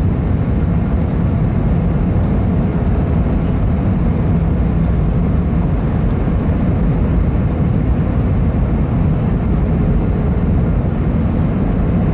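Steady engine and airflow noise of an Airbus A320, heard from inside the passenger cabin: a deep rushing roar with a faint steady hum under it.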